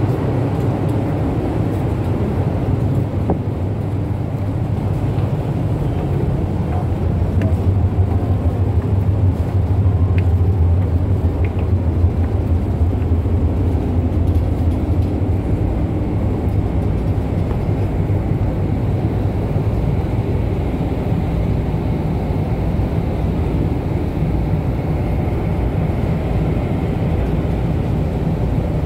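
Steady low rumble of a passenger ship under way at sea, heard on its open deck: engine drone mixed with wind on the microphone, a little louder about a third of the way through.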